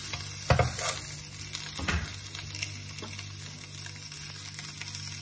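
Seared lamb neck pieces sizzling in a hot nonstick frying pan, still hot just after the gas burner has been turned off. Tongs knock against the pan twice in the first two seconds, over a steady low hum.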